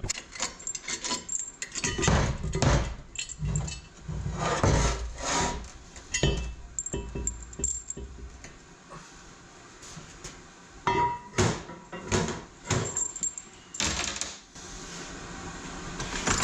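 Metal transmission parts and hand tools clinking and knocking irregularly during the teardown of a TH350 automatic transmission, with a short metallic ring about two-thirds of the way through.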